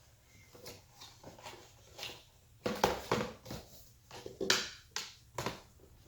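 Hands handling and fitting pieces of a gift set: a run of irregular knocks, clicks and rustles, loudest about three and four and a half seconds in.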